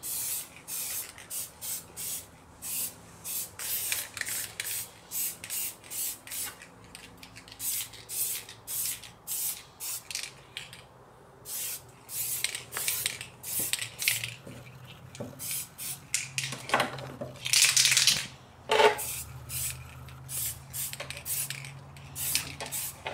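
Aerosol spray-paint can hissing in many short, irregular bursts as silver paint is laid in coats on the inside of a clear Lexan RC car body. The coats are being built up until the body is opaque.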